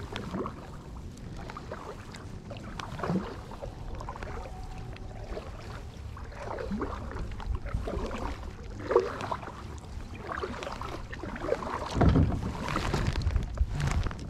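Small boat being paddled: irregular paddle strokes swishing through the water, with a burst of low wind rumble on the microphone about twelve seconds in.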